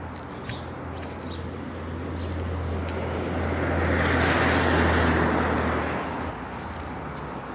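A vehicle driving past on the street, its noise swelling to a peak about four to five seconds in and then fading, over a steady low hum that drops away about six seconds in.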